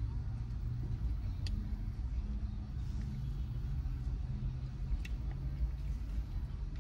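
Car engine idling, a steady low rumble heard inside the cabin, with a few faint clicks.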